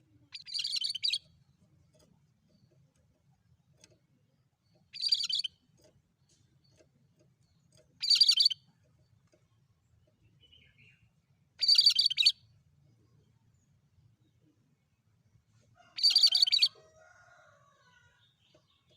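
A cucak kerinci singing five short, rapid bursts of high, dense chirping phrases, each under a second long and spaced a few seconds apart.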